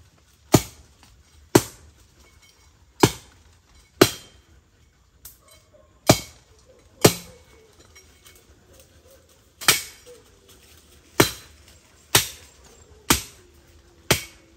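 Chopping into green wood with a blade, about eleven sharp strokes roughly a second apart, with a couple of short pauses between runs of strokes.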